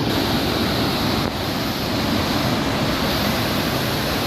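Bow Falls on the Bow River: a loud, steady rush of water pouring over the rock ledges.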